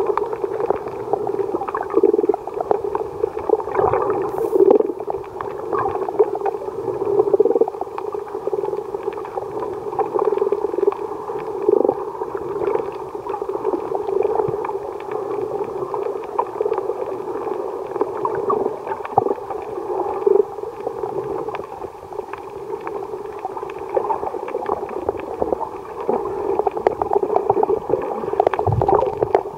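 Underwater ambience: a steady, muffled hum with constant light crackling and clicking, as heard below the surface.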